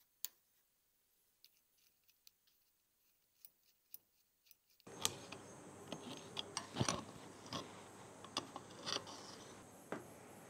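Small parts of a gear shift lever assembly clicking and clinking as they are handled and fitted, in sparse single clicks at first and then a denser run of knocks, the loudest around seven seconds in. A steady background hiss comes in suddenly about five seconds in.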